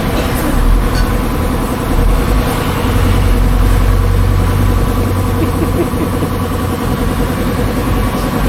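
A vehicle engine idling steadily, its low rumble growing heavier from about three seconds in.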